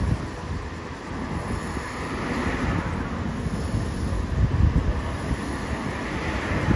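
Street noise with a Hiroshima Electric Railway 800-series tram approaching on street-running track: a steady low rumble of wheels on rail and passing road traffic.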